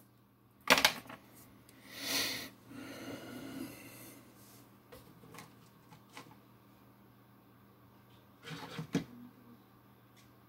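Engine parts being handled and set down on a workbench: a sharp knock about half a second in, a short scrape around two seconds, and a brief clatter near the end, over a steady low hum.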